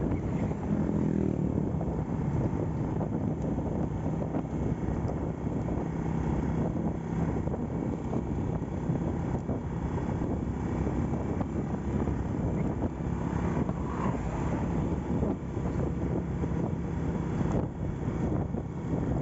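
Honda Astrea Grand's small single-cylinder four-stroke engine running steadily on the move, with wind rushing over the microphone.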